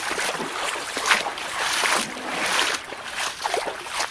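Shallow creek water sloshing and splashing in irregular surges.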